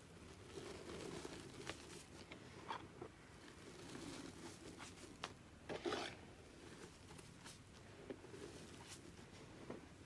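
Faint soft crunching of loose powdered gym chalk being scooped and pressed between the hands, with scattered small crackles and one louder crunch about six seconds in.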